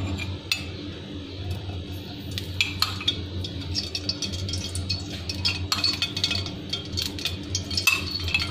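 Cooking oil poured from a small cup into a non-stick wok, with scattered light clicks and clinks throughout, over a steady low hum.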